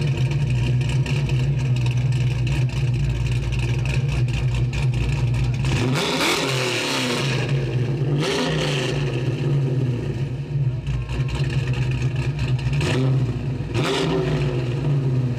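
A car engine running steadily with a low drone, with three brief swelling sweeps about six, eight and fourteen seconds in.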